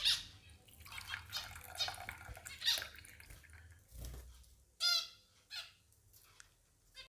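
Pet finches chirping and calling in short high-pitched bursts, several times, with a soft low thud about four seconds in.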